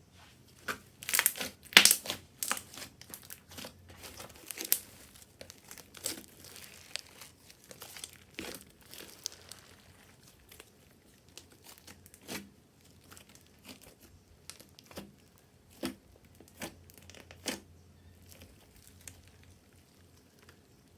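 Slime being worked by hand, giving irregular sticky pops and crackles. They come thick and loud in the first few seconds, then thin out to scattered single pops.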